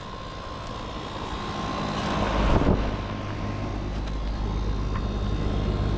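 Goodman central air-conditioner condenser running, a steady hum of rotary compressor and fan with a low rumble. The unit is shaking as it runs. A rushing swell of noise rises and falls about two to three seconds in.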